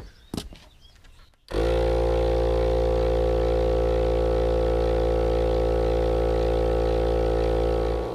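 Smittybilt 12V portable air compressor running steadily under load as it pumps up a truck tire, a loud, even drone that starts abruptly about a second and a half in. A few faint clicks come before it.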